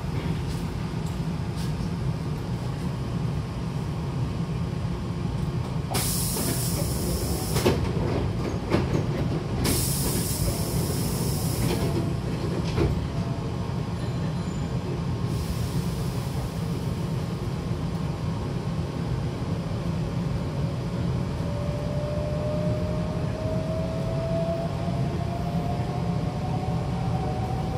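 Hankyu train's pneumatic sliding doors shutting, reopening and shutting again, with bursts of air hissing and thuds as the door leaves meet, over the steady hum of the standing train. About twenty seconds in, the traction motors begin a whine that slowly rises in pitch as the train starts to move.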